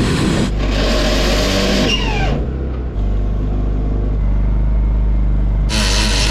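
Corded electric drill boring bolt holes through a steel boat hull at a porthole flange, the bit lubricated with oil. The motor runs steadily, with louder grinding of the bit cutting in near the start and again near the end.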